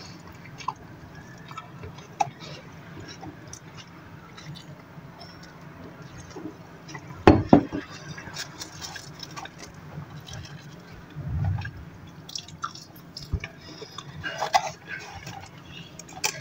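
Close-up eating sounds of a crispy chicken burger: biting and chewing with small wet mouth clicks and crunches. A single loud knock sounds about seven seconds in.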